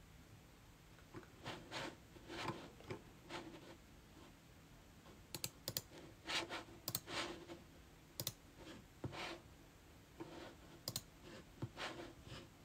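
Faint, irregular typing on a computer keyboard, with a few sharper clicks between about five and eleven seconds in.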